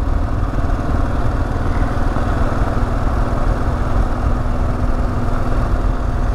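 Kawasaki KLR650S's single-cylinder engine running at a steady pace while the motorcycle rides along, its low hum holding even throughout under a steady rush of wind and road noise.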